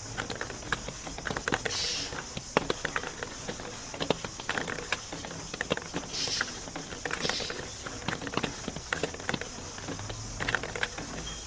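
Marbles rolling down a marble-run track, with a rapid, irregular stream of sharp clicks and rattles and a few brief rolling hisses.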